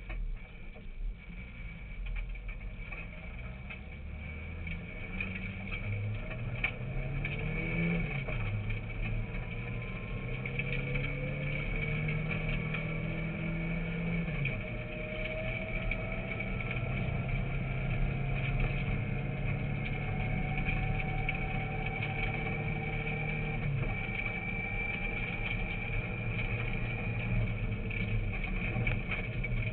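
Rally car engine heard from inside the cabin, accelerating along a gravel road: the revs climb and drop back with each of three gear changes. A steady high whine runs alongside the engine.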